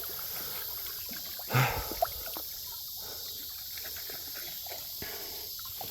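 Shallow creek water trickling steadily, with small clicks and one brief louder knock or splash about one and a half seconds in.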